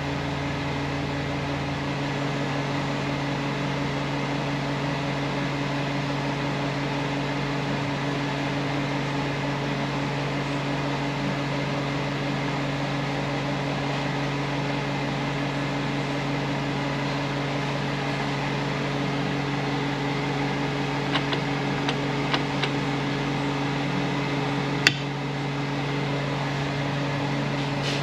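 Steady machine hum, like a running fan motor, with several fixed tones. Late on come a few light clicks, then one sharp click.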